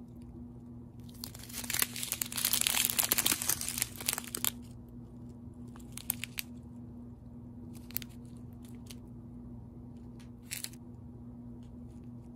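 Strip of sealed plastic bags of square diamond-painting drills crinkling as it is handled, loudest for about three seconds starting a second in, then a few short crinkles.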